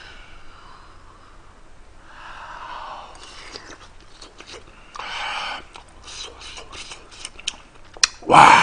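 A person eating scalding-hot rice-cake dumpling soup: small wet chewing and mouth clicks, broken by sharp huffs of breath through the mouth as the hot food burns. The loudest is a strong blowing huff near the end.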